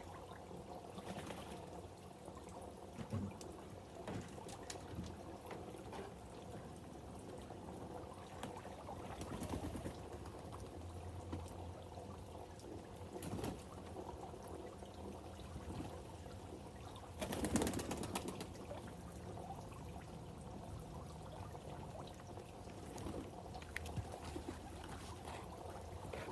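Water pouring and trickling steadily into the pigeons' bath, with a brief louder rush about two-thirds of the way through.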